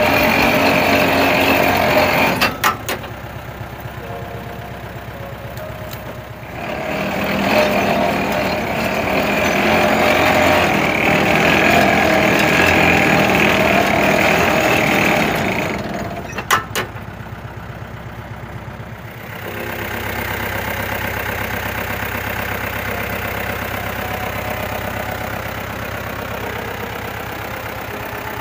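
Engine of a truck-mounted borewell rig running with its winch, working harder in two stretches and dropping back to a lower, steadier run after each, with a sharp clank at each drop.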